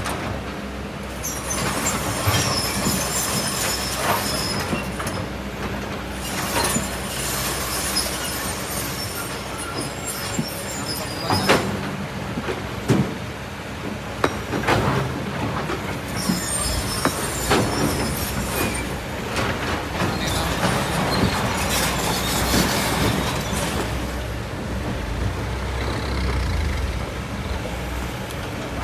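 Kobelco SK200 hydraulic excavator working, its engine running steadily under load, with repeated stretches of high-pitched metallic squealing and scraping, and several sharp knocks in the middle.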